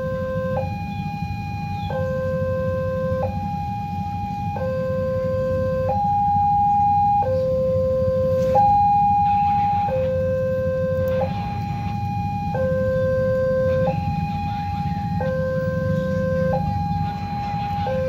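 Railway level-crossing warning alarm sounding a steady two-tone electronic signal, a higher and a lower tone alternating about every two-thirds of a second, meaning a train is approaching and the barriers are closing. A low rumble of idling road traffic runs underneath.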